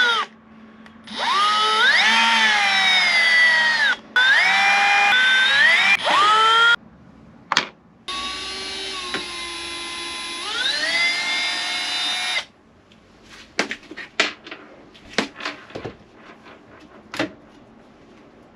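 Power drill-driver with a hex bit backing out the ceiling panel's screws. The motor whines in three runs, its pitch rising as it speeds up in each. Small clicks and taps follow near the end.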